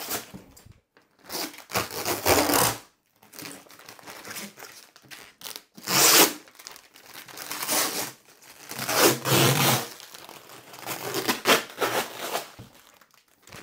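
Clear plastic bag crinkling and rustling in irregular bursts as it is pulled and slid off a machine's smooth plastic housing, loudest about halfway through.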